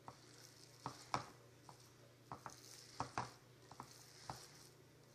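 A hand kneading and mixing a chopped-chicken stuffing with bean thread noodles in a glass bowl: faint squishing and rustling with irregular soft clicks, the loudest about a second in and again about three seconds in.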